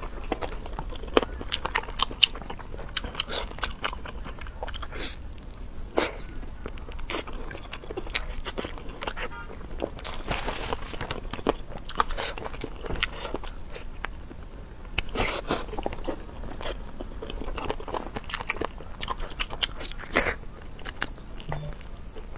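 Close-up eating sounds of glazed chicken wings being bitten and chewed by mouth, with many sharp, irregular clicks of biting and chewing.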